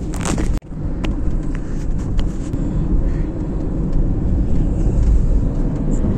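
Car driving at speed: a steady low rumble of road and wind noise heard from inside the cabin, with a brief drop in the sound about half a second in.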